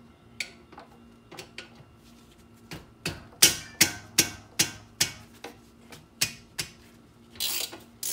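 Metal clinks and knocks of hand tools and brake hardware being worked at the back of a car's front brake caliper and bracket: a run of sharp knocks about two to three a second in the middle, and a longer rattle near the end.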